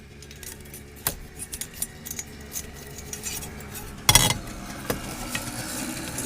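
Small metal steering-column parts clicking and clinking as they are handled and turned over by hand, with one louder clatter about four seconds in. A faint low hum sits underneath.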